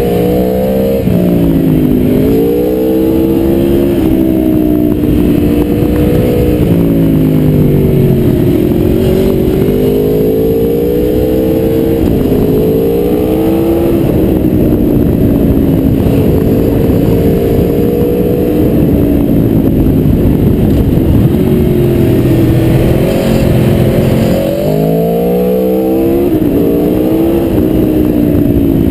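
Aprilia Tuono V4R's V4 engine heard from on board while riding, its pitch rising under throttle and falling as it rolls off through the bends. It drops sharply and climbs again about a second in and again near the end.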